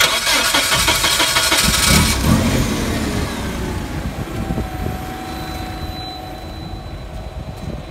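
Propane forklift engine cranked by the starter for about two seconds, then catching and settling into a steady idle.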